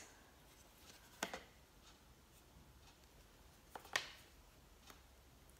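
Near-quiet room with two light clicks of small accessory pieces being handled on a tabletop, about a second in and about four seconds in.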